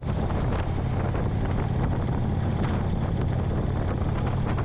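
Cruiser motorcycle riding at road speed: its engine runs steadily beneath a heavy rush of wind on the microphone.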